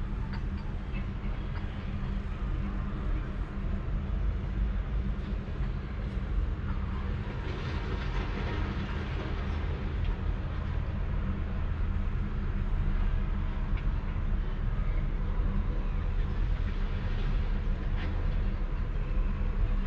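Sleeping cat purring close to the microphone: a steady low rumble with a fast flutter.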